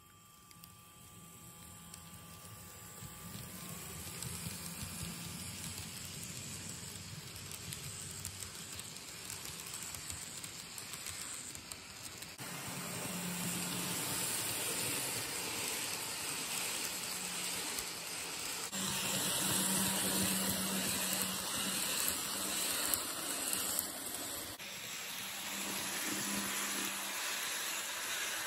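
Kato N scale model train, a P42 Genesis locomotive pulling Amfleet cars, running on track: a steady rushing of small metal wheels on the rails over a low motor hum. It grows louder over the first few seconds, and its tone shifts abruptly a few times.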